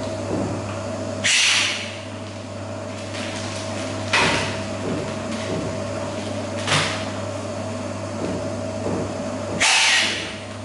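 STRONGER continuous band sealer with air inflation and date printing running with a steady motor hum. Four short hissing bursts sound as bags are fed through, two of them longer, about a second in and near the end.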